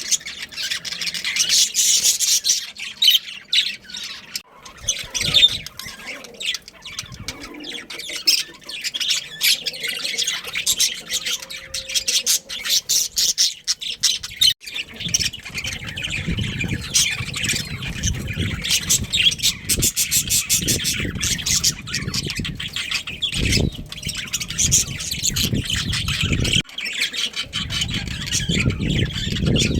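Budgerigars chattering, a dense run of quick squawks and chirps, with a low rumble joining in about halfway through.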